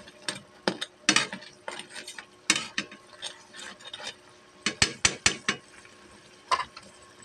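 A spoon stirring crabs in a pan of boiling butter-garlic sauce: irregular sharp clinks and scrapes against the pan, with a cluster of louder knocks about five seconds in, over a faint bubbling hiss.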